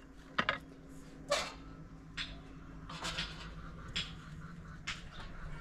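Scattered light knocks and clinks, about six over a few seconds, the loudest near the start and about a second in, over a faint steady low hum.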